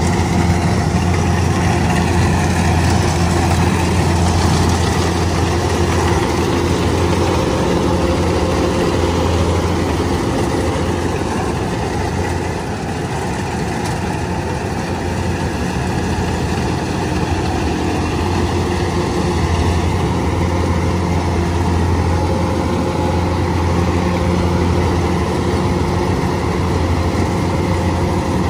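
Rice combine harvester's engine running steadily, easing off slightly for a few seconds about halfway through.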